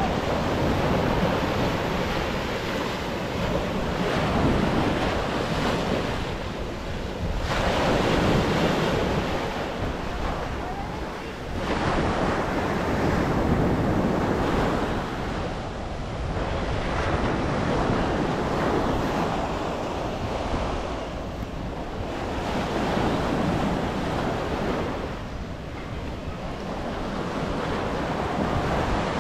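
Ocean surf breaking on the beach, the wash of the waves swelling and fading every few seconds, with wind rumbling on the microphone.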